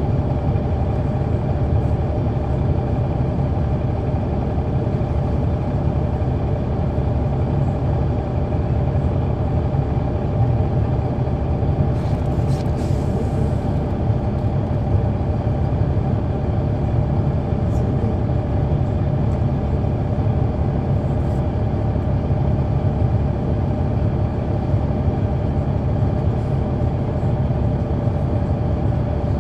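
Interior sound of a 2004 Neoplan AN459 articulated transit bus under way, its Caterpillar C9 ACERT diesel engine howling at a steady pitch over constant road rumble. A brief hiss comes about twelve seconds in.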